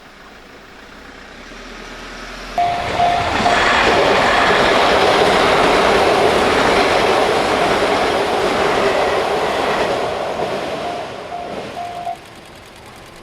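A train passing over a level crossing: its noise builds, stays loud for several seconds and fades away. A level-crossing warning bell is heard in short repeated dings as the train arrives and again as it leaves.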